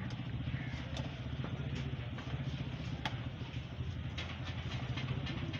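An engine idling steadily with a fast, even low pulse, with a few light clicks over it.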